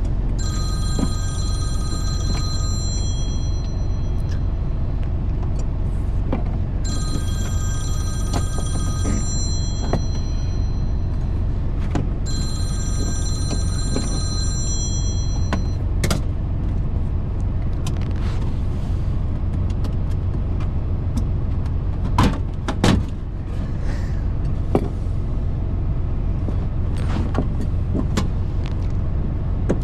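Steady low engine hum of an idling semi truck. An electronic ringing tone sounds three times in the first half, each ring about two and a half seconds long. A few sharp knocks come later, the loudest a pair about two-thirds of the way in.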